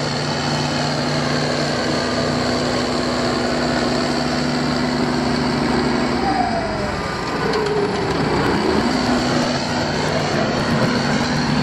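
Single-drum soil compactor roller running, a steady diesel engine drone over a constant rumble while it packs down dirt. The engine note drops about six seconds in and picks up again a couple of seconds later.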